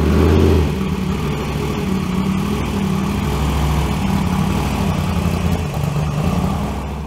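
Jimco One trophy truck's race engine running steadily at idle, loud, swelling over the first half second and then holding even.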